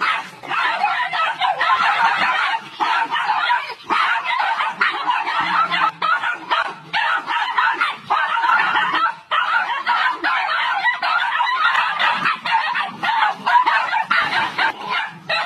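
A litter of puppies yapping, growling and squealing together as they play-fight, a dense high-pitched din with a few short breaks.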